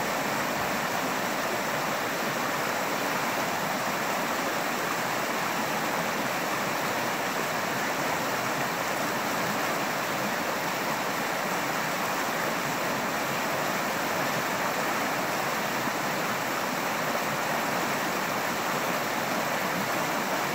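Creek water rushing steadily over rocks in shallow rapids.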